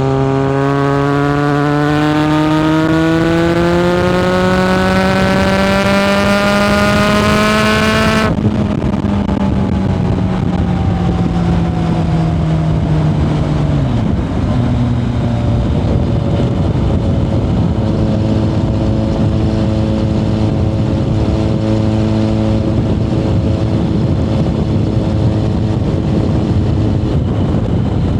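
1997 Kawasaki ZRX1100's inline-four through a Yoshimura exhaust, heard onboard while riding. The engine pulls with revs climbing steadily for about eight seconds, then the throttle shuts and the revs fall away for several seconds. It then settles into a steadier cruise.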